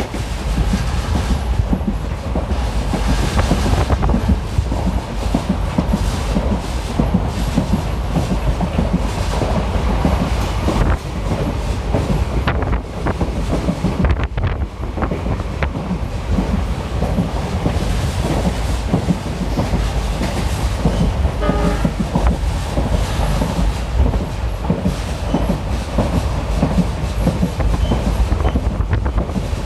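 Passenger train running, heard from on board: a steady heavy rumble with the wheels clattering over the rail joints.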